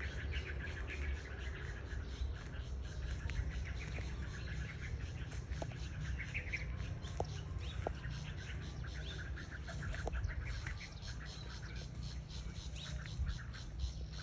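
Several birds chirping and calling continuously, with rapid repeated notes, over a steady low rumble.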